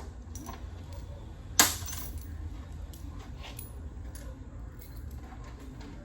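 Loose metal bolts and small hardware clinking as they are handled and dropped, with one sharp, louder clink about a second and a half in, over a steady low hum.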